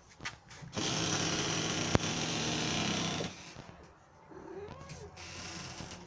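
A steady hiss lasting about two and a half seconds, with a single sharp click in the middle, followed by a soft, short domestic cat meow that rises and falls in pitch.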